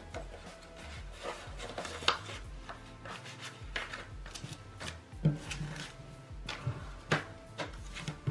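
Paper cash envelopes and banknotes rustling, sliding and tapping on a wooden table as bills are pulled out and laid down, with faint background music.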